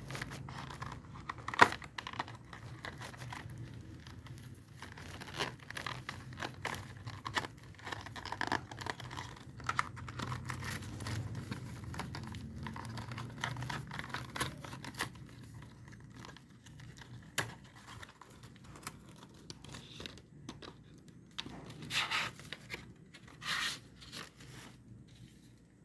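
Irregular clicks, rustling and scraping from hands handling small objects, over a faint low hum.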